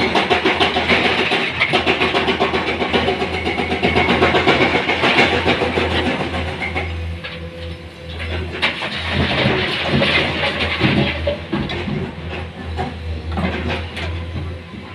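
Excavator diesel engine running steadily under a dense clatter and scrape of rocks being loaded into a dump truck. The rattling is heaviest in the first half, eases around the middle and picks up again briefly about ten seconds in.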